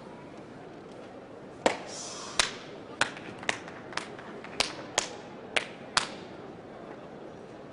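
A sumo wrestler slapping himself hard during the pre-bout ritual: about nine sharp, loud smacks, roughly two a second, starting about two seconds in and stopping about a second before the end.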